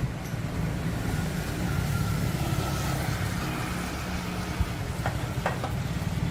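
Small motorcycle engine running steadily with a fast low flutter, and a few light clicks about five seconds in.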